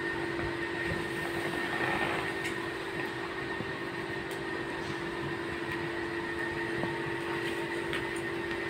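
A steady mechanical hum with a constant low drone and a fainter high whine over a noisy hiss, with a few faint clicks.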